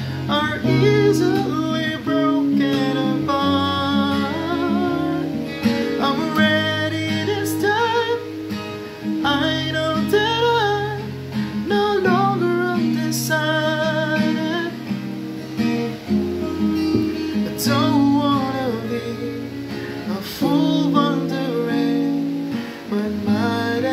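A man singing a love song to his own acoustic guitar, which he strums and picks throughout.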